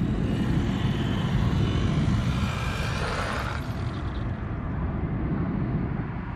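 1/12-scale RC desert truck driving, its brushed electric motor and drivetrain whining, with squeaking from the metal-on-metal outdrives. The higher part of the sound drops away about four seconds in.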